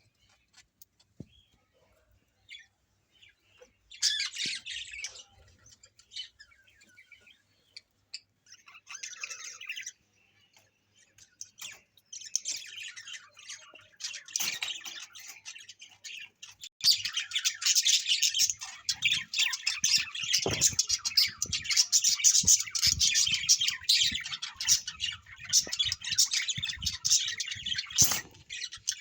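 A flock of small birds chirping and chattering. It starts as a few short bursts and builds about halfway through into dense, continuous, loud chatter.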